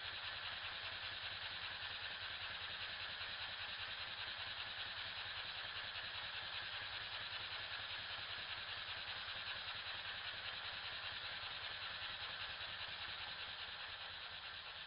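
A miniature twin-cylinder model steam engine, a half-size copy of a Stuart Score, running with a fast, even beat from its pistons and valve gear. The sound is slowed to a quarter of normal speed, so it comes out low and dull.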